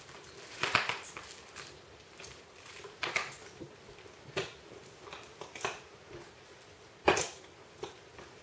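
Irregular scuffles and bumps of a Siberian Husky puppy and a ferret wrestling on a cushioned pet bed, a handful of short sudden sounds with the loudest about seven seconds in.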